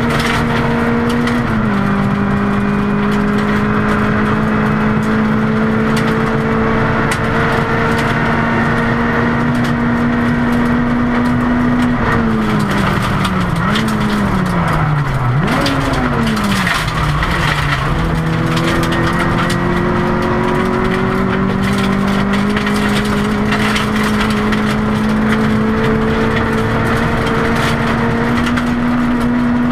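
Rally car engine at full throttle on a gravel stage, heard inside the cabin: it holds high revs with an upshift about a second and a half in. Around twelve seconds in the revs fall and jump several times, then it pulls steadily up through the revs again. Gravel clicks and rattles under the car throughout.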